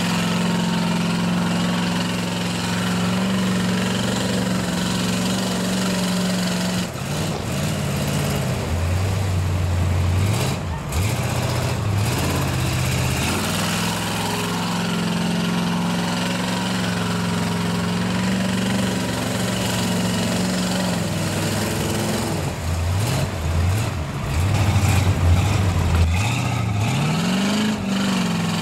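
Lifted square-body pickup truck's engine running at a steady pitch, then revving up and down hard in two spells while the truck spins its tyres through mud: one spell about a quarter of the way in, the other in the last few seconds.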